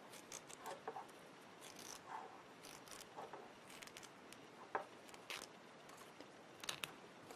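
Faint rustling and a few soft scattered ticks of ban roll tape being pulled away from a stitched chiffon hem by hand. The tape is being removed after stitching, the last step of the narrow hem.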